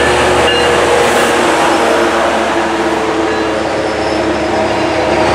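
Metrolink diesel passenger locomotive passing close by with its engine running steadily, followed by its bilevel coaches rolling past on the rails.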